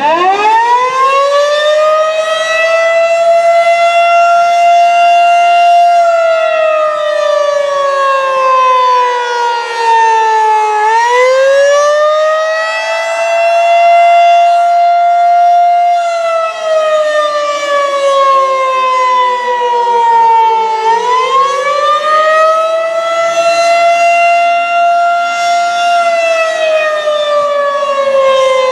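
Federal Signal 2001-130 outdoor warning siren sounding its alert test signal, loud. Its pitch climbs sharply at the start, holds for about four seconds, then sags over about five seconds before climbing again, repeating about every ten seconds.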